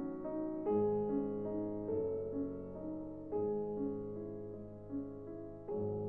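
Background music: gentle piano playing slow chords and melody.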